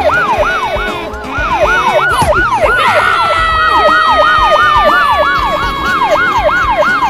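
Siren sound effect in a rapid yelp, its pitch rising and falling about three times a second. From about three seconds in, a long tone that slowly falls in pitch is layered over it.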